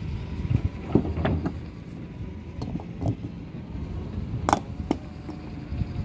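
Loose stones clacking against one another as they are set by hand into a wire-mesh gabion basket: a few sharp, separate knocks, the loudest about four and a half seconds in, over a steady low rumble.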